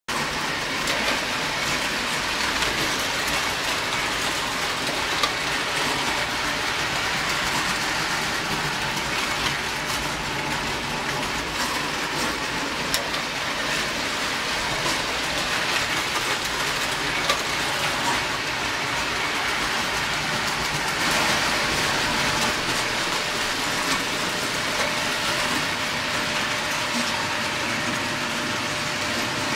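Prewar Lionel electric toy trains running on tinplate track: a steady rattling clatter of wheels and motors with a few light clicks.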